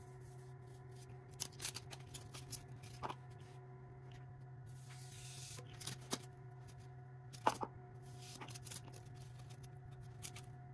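Expanded polystyrene foam blocks being handled and cut with a hot-knife foam cutter: faint rubbing and crackling of foam, with a few sharper clicks, the loudest about seven and a half seconds in. A steady low hum runs underneath.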